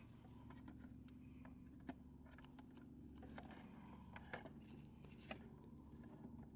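Near silence: a steady low hum with a few faint, scattered clicks.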